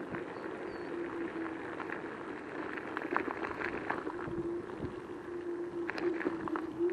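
Joyor S10S electric scooter's motor giving a steady whine while riding slowly over a gravel and dirt road, with scattered clicks and crackles from the tyres and frame.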